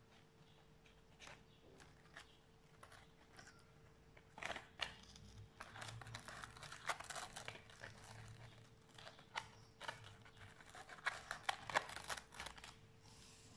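Rustling and crinkling of a lace ribbon being handled and wrapped around the rim of a foam craft basket, with hands brushing the plastic-covered table. There are sparse small clicks at first, then a busier run of crackles and rustles from about four seconds in. A faint steady hum lies underneath.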